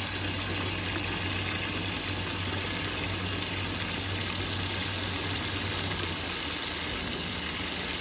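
Water pouring from a hose into a half-full bucket, a steady gushing splash: fresh water flushing the descaling vinegar and loose sediment out of a tankless combi boiler's heat exchanger.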